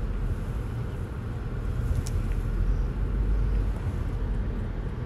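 Car cabin noise while driving slowly: a steady low rumble of engine and tyres on the road, with a small click about two seconds in.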